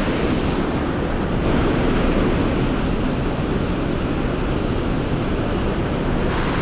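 Steady rush of fast-flowing river water, mixed with wind rumbling on the microphone. The hiss turns brighter near the end.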